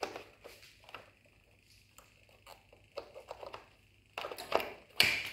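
A mains plug being handled and pushed into a ceiling socket: light scattered scrapes and clicks, a busier run of fumbling about four seconds in, then one sharp click near the end as the plug seats.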